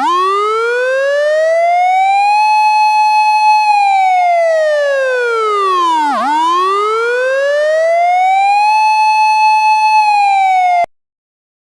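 Siren sound effect: a single wailing tone that slowly rises, holds, sinks low, then rises and holds again, before cutting off abruptly near the end.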